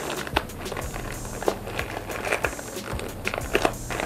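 Plastic courier mailer bag crinkling and crackling as it is handled, in irregular sharp crackles.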